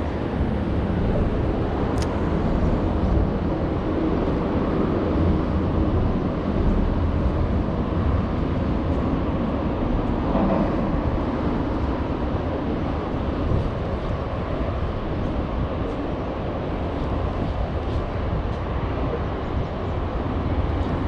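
Steady low rumble of road traffic on the bridge overhead.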